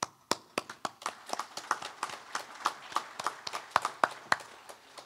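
Applause from a small group: scattered hand claps, several a second, thinning out near the end.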